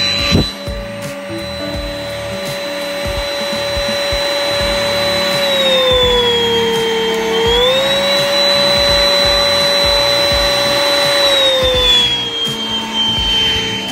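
AirBot Supersonic 3 cordless stick vacuum running, its motor giving a steady high whine. About five and a half seconds in, the pitch sags and climbs back up about two seconds later as the power button is pressed. Near the end it drops again and settles on a lower whine.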